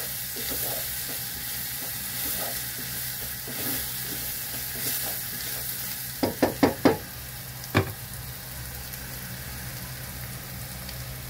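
Ground garlic and spices frying in oil in a pot, sizzling steadily while stirred with a wooden spatula. A little after six seconds comes a quick run of about five sharp knocks, then one more, as the spatula is tapped against the pot. After that the sizzling is quieter.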